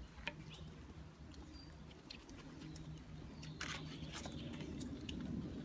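Light clicks and taps of small plastic toys being handled, a doll set down in and around a toy dollhouse, a few of them grouped in the middle and near the end, over a faint low background murmur.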